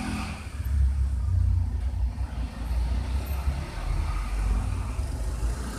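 A low, steady rumble with a faint hiss above it.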